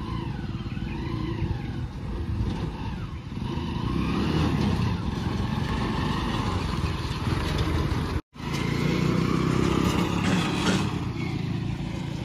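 Motorcycle engine running while it pulls a loaded-looking trailer cart, growing louder about four seconds in as it passes close. The sound drops out for a split second a little past eight seconds.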